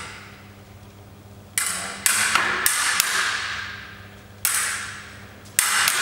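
Sabre blades clashing, metal on metal, in quick groups of sharp strikes, about seven or eight in all, each ringing out with a long echo in the big hall.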